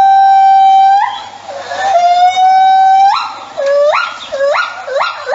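A small animal crying in long, drawn-out howling cries: one held cry that stops about a second in, a second held cry after a short break, then three short rising cries near the end.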